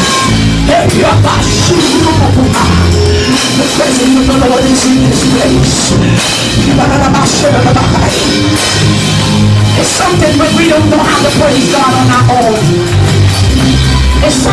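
Loud gospel praise music with drums, a moving bass line and singing, playing without a break.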